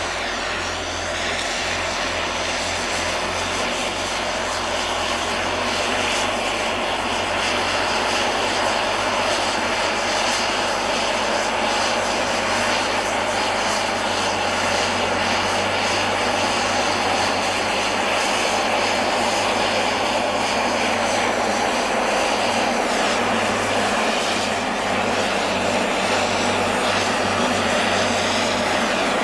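Loud, steady engine drone with a constant low hum. It starts suddenly just before this stretch and stays even throughout.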